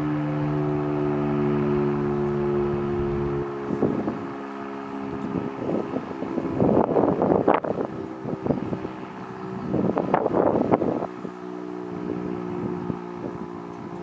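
The Federal Signal Model 5 three-phase siren at the low end of its run: a low drone of several steady tones. The lowest tones drop out about three and a half seconds in, and the rest fade on. Loud gusts of wind buffet the microphone twice, partly covering it.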